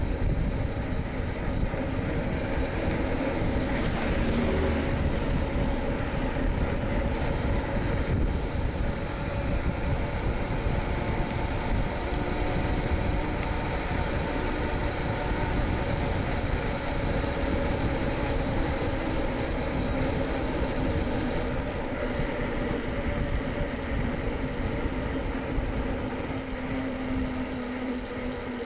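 Wind rushing over the microphone of a moving bicycle, with a distant air-raid siren holding a steady tone underneath.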